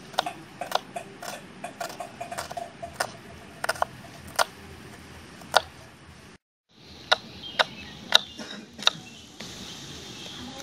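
Small kitchen knife slicing garlic cloves and shallots on a wooden cutting board: sharp, irregular taps of the blade striking the board, one or two a second, with a brief break just past the middle.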